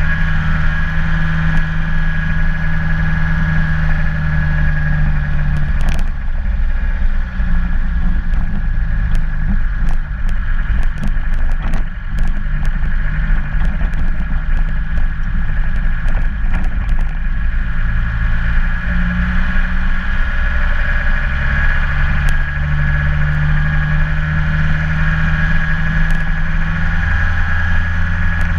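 A car engine runs steadily while driving, heard from a camera mounted on the bonnet. From about a sixth of the way in to past halfway, the road turns to rough gravel, and stones tick and rattle under the tyres while the engine note wavers. Near the end the engine settles back to a steady note.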